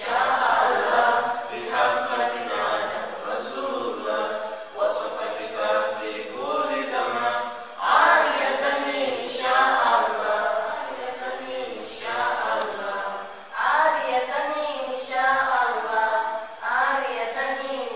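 Several voices singing together a cappella, in a chant-like melody sung in phrases of a second or two, with no instruments.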